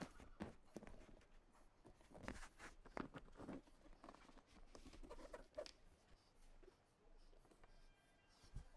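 Faint handling noises: light taps and rustles of a semi-flexible solar panel being lifted and laid onto a van roof, with a soft knock near the end as it is pressed down.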